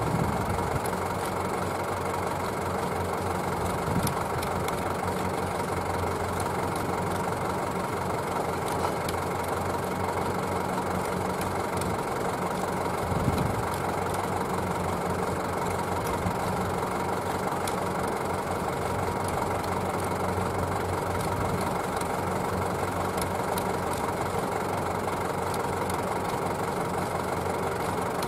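Kubota ZL3001 tractor's diesel engine running steadily as it works a straw-rolling machine in the field, with faint ticking from the machinery.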